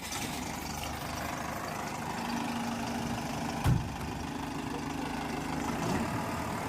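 Diesel engine of a Tata Hitachi Shinrai BX80 backhoe loader running steadily, with a single low thump a little under four seconds in.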